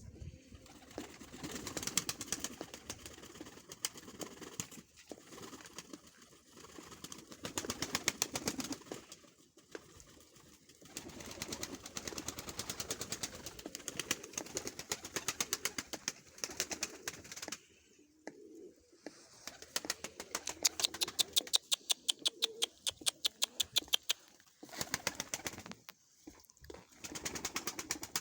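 Domestic pigeons cooing, with bouts of rapid sharp tapping, strongest about two thirds of the way in.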